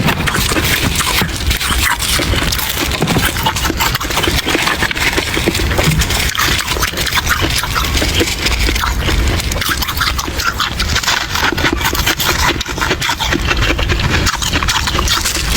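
Close-miked chewing of frost ice from a humidifier: dense, continuous crunching and crackling.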